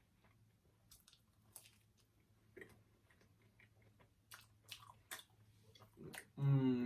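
Close-miked chewing of food, with small wet mouth clicks and crackles scattered through. Near the end comes a short hummed vocal sound, the loudest thing heard.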